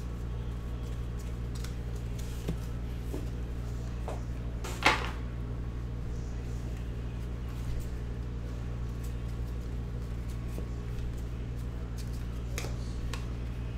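Faint clicks and brushes of trading cards being handled and sorted, over a steady low hum, with one short louder brushing sound about five seconds in.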